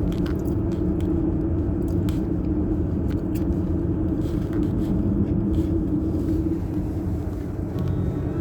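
Car engine running steadily under a rumble of road noise while driving, with scattered short clicks and knocks.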